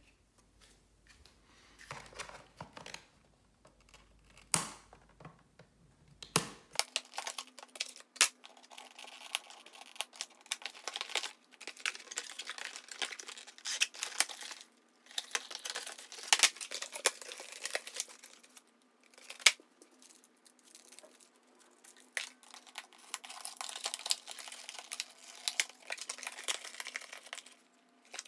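Cardboard boxes and plastic packaging of Nerf Rival blasters being cut open with scissors and pulled apart: intermittent spells of rustling with many sharp clicks and snaps, broken by short pauses.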